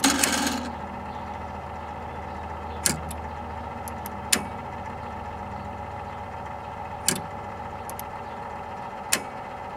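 Steady hum of a running 1961 Zenith Space Command tube TV chassis, with a short burst of noise at the start and four sharp clicks spread through, the remote-control receiver's relays clicking in as an inaudible ultrasonic test tone is swept up toward about 39 kHz.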